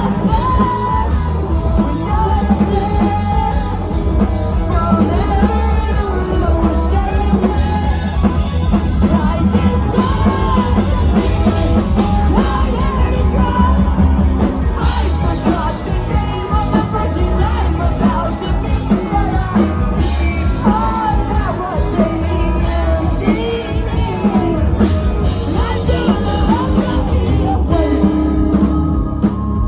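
Rock band playing live at full volume, with a sung lead vocal over loud bass, drums and guitars.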